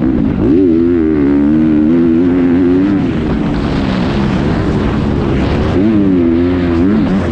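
Honda motocross bike's engine revving under the rider, pitch climbing sharply just after the start, holding, dropping about three seconds in, then rising and falling again near the end. A steady rush of noise runs beneath it.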